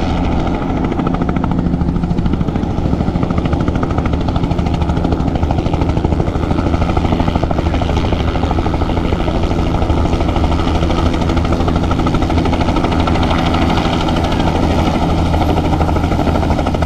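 Helicopter flying low over the airfield: a steady engine drone with a rapid, even rotor beat that carries on without a break.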